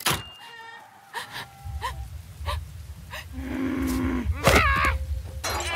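Cartoon sound effects: scattered clicks and short chirps, then a low, drawn-out vocal groan over a rumble. A sharp knock follows, then short cries that fall in pitch, one near the end.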